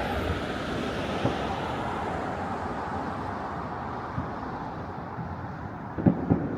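Steady outdoor rumble with wind on the microphone. A couple of dull thumps land close together near the end.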